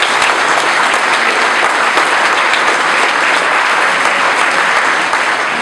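Audience applauding: a dense, steady round of clapping that starts abruptly and holds at full strength.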